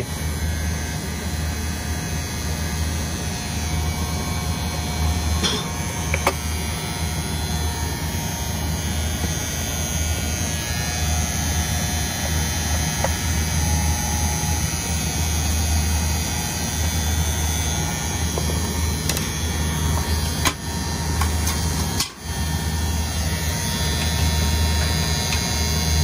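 Reach-in freezer's electrical contactor buzzing with a steady, low mains hum, with a few light clicks of handling. The buzz is the sign of a failing contactor that needs replacing.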